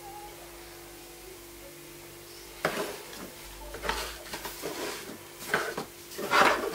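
Plastic stackable storage containers being handled: after a quiet start with a faint steady hum, a series of separate clacks and knocks, the loudest near the end.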